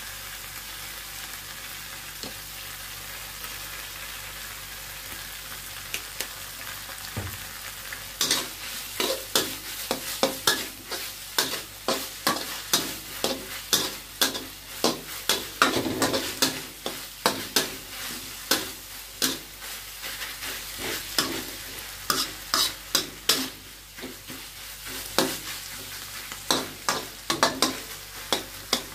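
Chopped vegetables sizzling in a wok, then from about eight seconds in a spatula scraping and knocking against the pan over and over, several strokes a second, as they are stir-fried.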